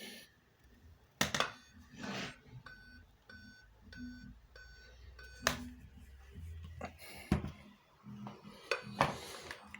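Dell Inspiron 3531 laptop beeping through its speakers: a run of short, evenly spaced beeps, about one every half second to second, in a repeated diagnostic beep-code pattern from a laptop that fails to start. A few sharp knocks sound among the beeps.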